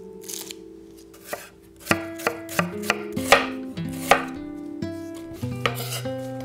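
A chef's knife slicing a red onion on a wooden cutting board: sharp knife strikes against the board, few at first, then two or three a second from about two seconds in.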